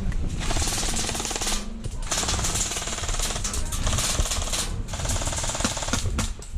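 Airsoft rifle firing on full auto: four long bursts of rapid clicking shots with short pauses between them.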